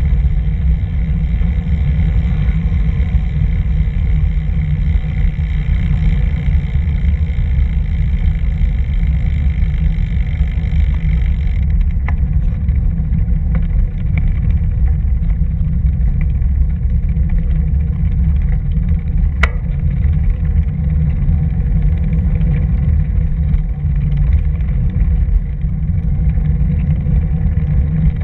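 Wind buffeting the microphone of a moving action camera, a steady low rumble, with one sharp click about two-thirds of the way through.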